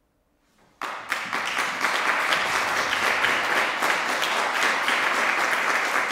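Near silence, then audience applause breaks out suddenly under a second in and carries on steadily, with single claps standing out here and there.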